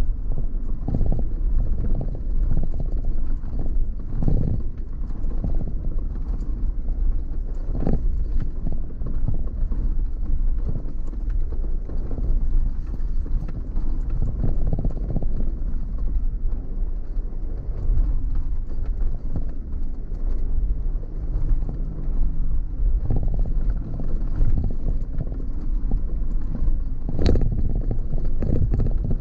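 Off-road vehicle's engine running at low speed on a rough track, with frequent irregular knocks and clatters as it bumps over stones, one sharp knock near the end.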